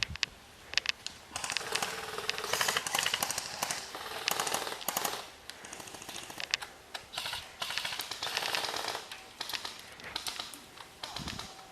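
Airsoft guns firing: scattered single shots, then long bursts of rapid full-auto fire, a dry ticking clatter, from about a second in and again later.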